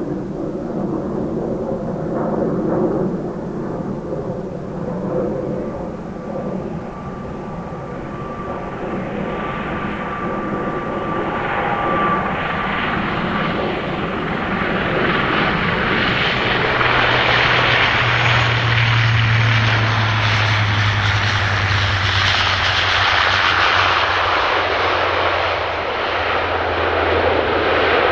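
Bombardier DHC-8-402 Q400 turboprop airliner's engines and propellers, with a steady engine hum and a thin whine in the first half. Just past the middle it grows much louder into a rushing roar with a deep steady propeller drone.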